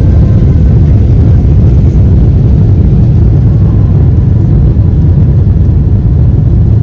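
Boeing 777's twin jet engines at takeoff thrust during the takeoff roll, heard from inside the cabin as a loud, steady low rumble.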